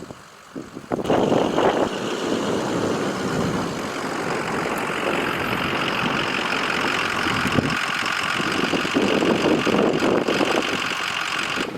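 Farmall M tractor's four-cylinder engine running steadily, coming in about a second in.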